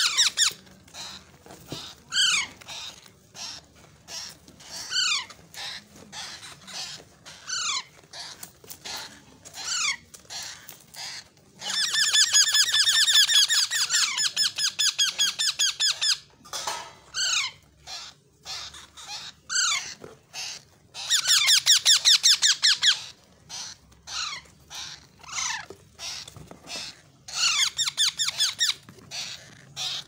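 Green parakeet chicks calling: short, high, falling squeaky calls every second or so, broken by two long runs of rapid, harsh repeated calls, about twelve and twenty-one seconds in.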